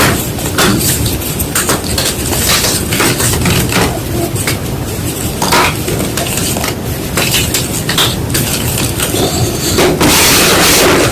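White gym chalk crunching and crumbling up close, an irregular run of crisp cracks that turns denser and louder near the end.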